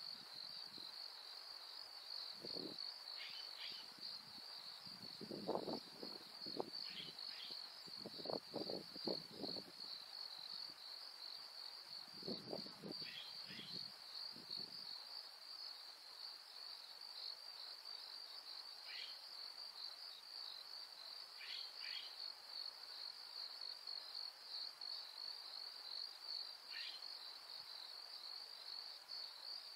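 Insects, likely crickets, trilling in a steady high-pitched chorus, with brief high chirps, often in pairs, every few seconds. A few low muffled bursts come in the first half.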